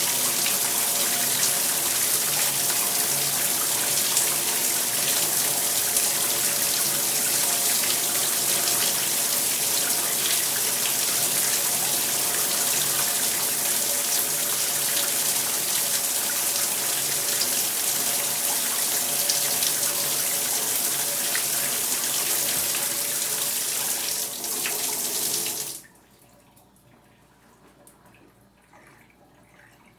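Shower spray running steadily, a dense hiss of falling water with a faint ringing hum in it. It stops suddenly about 26 seconds in, leaving only faint sound.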